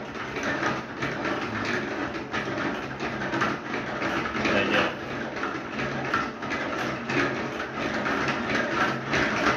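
Beer bottles knocking and rattling inside a lidded plastic bucket of steriliser solution, with the liquid sloshing as the bucket is gently swirled by hand. The clicks and knocks come in a dense, irregular run.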